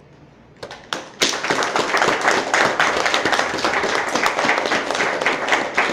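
Audience applauding: a few scattered claps a little over half a second in, then steady applause from about a second in.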